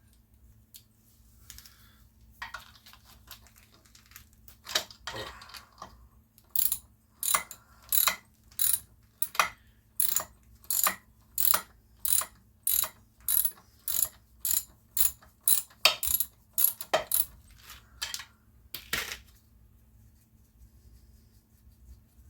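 Socket ratchet wrench clicking in steady strokes, about two a second, while a nut is being worked off, after a few scattered clicks at the start.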